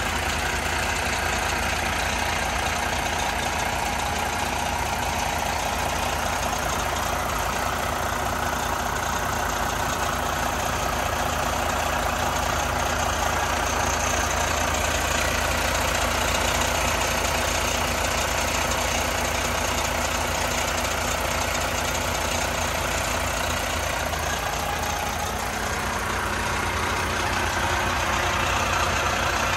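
Volvo D13 turbo-compound diesel engine of a 2021 Volvo VNL860 semi truck idling steadily.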